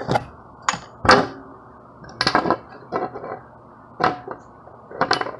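Sharp metallic clinks and knocks, about eight spread over a few seconds, as a piece of copper refrigerant line joined by a flare union is handled and knocked against a hard surface.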